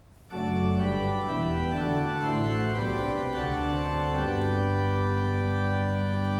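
Church organ starting to play suddenly about a third of a second in, a sequence of sustained chords over a moving bass that settles into a long held chord.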